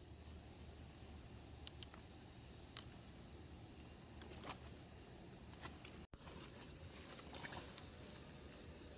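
Faint, steady high-pitched insect chorus, with a few scattered small clicks and rustles.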